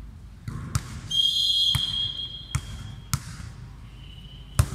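A volleyball being played in a rally: about five sharp slaps of hands and forearms on the ball, the loudest near the end. A high steady tone runs for about two seconds in the first half.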